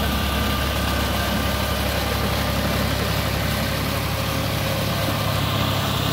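John Deere 5045 D tractor's three-cylinder diesel engine running steadily as it pulls a rotavator through a flooded paddy field, puddling the mud.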